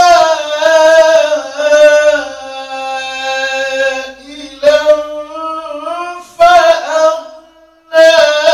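A man reciting the Quran in a drawn-out melodic chant (tajweed), holding long wavering notes. There are brief pauses for breath about four seconds in and near the end.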